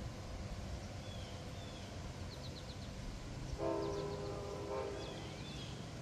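Amtrak Cardinal locomotive's air horn sounding one short blast of about a second, a chord of several tones, in the distance. Birds chirp now and then.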